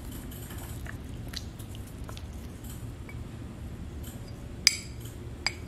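Faint steady room hum with a few small ticks, then two sharp light clinks on a ceramic saucer, under a second apart near the end, as oil paint is squeezed from a metal tube onto it.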